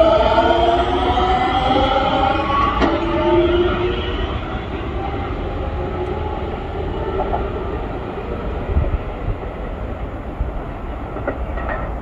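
Keikyu 1000 series electric train pulling out and accelerating away. Its motors give a whine of several tones that rises in pitch over the first few seconds and then fades, leaving a steady rumble that slowly dies down as the train recedes.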